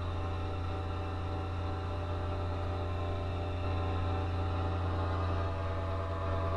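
Steady electrical hum with many overtones on an open broadcast channel: dead air after the Emergency Alert System test announcement, before the end-of-message tones are sent.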